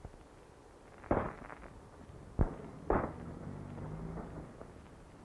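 Gunshots: about four sharp cracks over three seconds, two of them ringing briefly. After the last shot a vehicle engine runs low and steady as an old truck pulls away.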